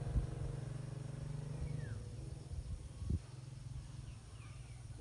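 A low, steady motor hum that fades out after about two seconds, with a dull thump near the start and another about three seconds in, and a few faint bird chirps.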